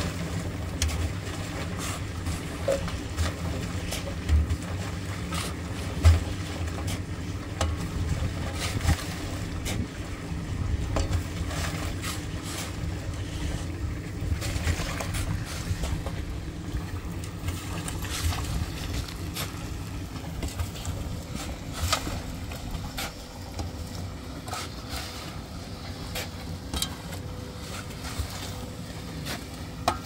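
A drum concrete mixer's motor running with a steady low drone, while shovels scrape and crunch into gravel and sand in short, irregular strokes.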